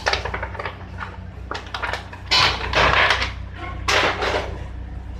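Kitchen handling noise: scattered knocks and clicks, with two louder stretches of clattering rustle about two and four seconds in, over a steady low hum.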